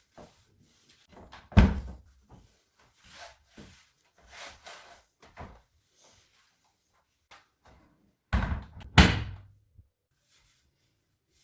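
Bathroom cabinet doors knocking shut: a sharp knock about a second and a half in, then two more close together later, with light handling and rustling between.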